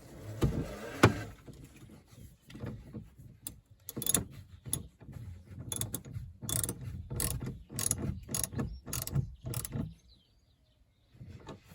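Socket ratchet clicking in short strokes while a fitting on the car battery is worked, with a couple of knocks about a second in.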